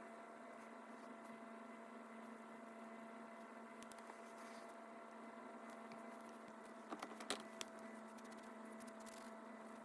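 Faint steady electrical hum, with a quick cluster of three or four small sharp clicks about seven seconds in.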